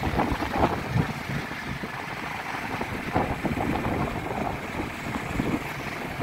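Wind buffeting the microphone on a moving motorcycle, with the motorcycle's running noise underneath, rising and falling in uneven gusts.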